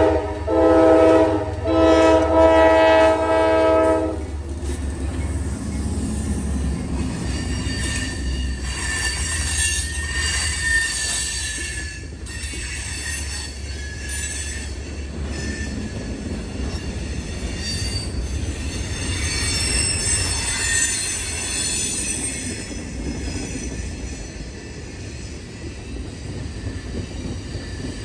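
GE ES40DC diesel locomotive's Nathan K5LA five-chime air horn sounding a chord in three blasts, the last the longest, ending about four seconds in. The train then rolls past with a steady low rumble and a high metallic squeal from its wheels.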